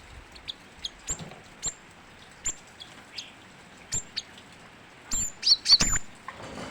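Cinereous tit (gelatik batu) calling: short, sharp, high chirps spaced about half a second to a second apart, rising to a louder flurry of chirps with a few knocks near the end.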